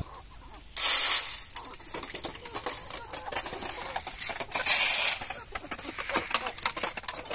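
Dry grain poured twice from a plastic bucket onto a metal tray, each pour a short hissing rattle. Between the pours, chickens peck grain off the metal tray in many quick small clicks.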